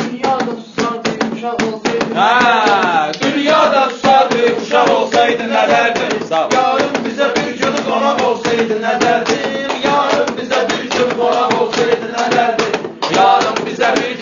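Meyxana: a male voice singing rhymed verse over a steady held accompaniment tone and a quick percussive beat.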